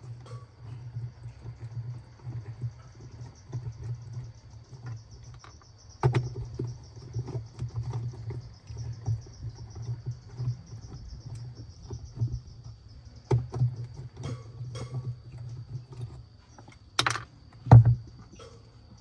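Irregular small clicks and knocks of hands working on parts, over a steady low hum and a faint high whine, with two louder knocks near the end.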